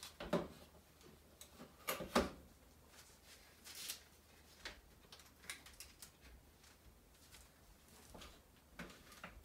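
Scattered light clicks and knocks of a metal cookie scoop against a glass mixing bowl and a parchment-lined baking sheet as a cheese-and-cauliflower mixture is scooped and portioned out, with the loudest knocks about two seconds in.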